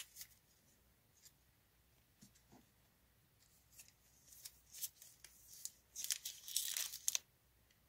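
Foil Pokémon booster pack wrapper crinkling faintly as it is handled, then a quick run of louder crinkling rips about six seconds in as the pack is torn open.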